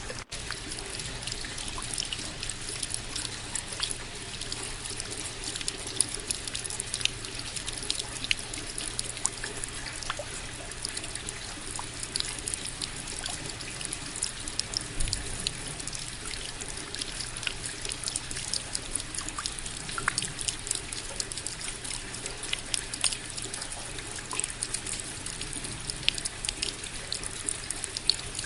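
Steady rain: many sharp, irregular drops falling over an even hiss of water.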